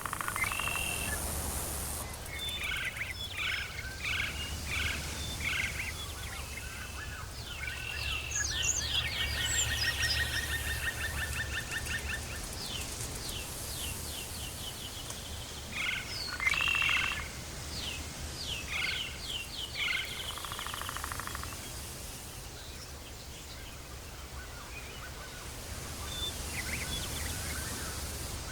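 Tropical forest ambience: many overlapping animal calls, chirps and rapid trills, busiest in the first half with a louder burst a little past the middle, over a steady low rumble.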